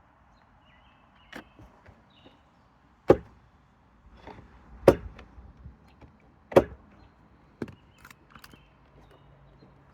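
Gutter flashing being sliced with a knife to fit around a gutter bracket: a series of sharp clicks and snaps, the loudest four roughly a second and a half apart, with smaller ticks between.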